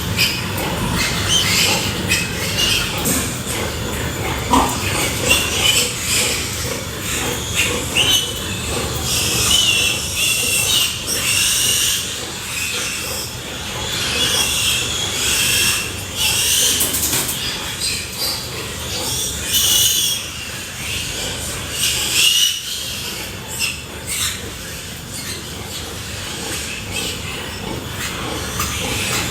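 Pigs squealing over and over, in short high-pitched cries, against a constant noisy background.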